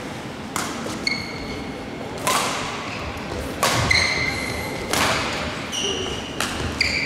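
Badminton rally: five racket hits on the shuttlecock, about one every second and a half, with sports shoes squeaking on the court floor between shots.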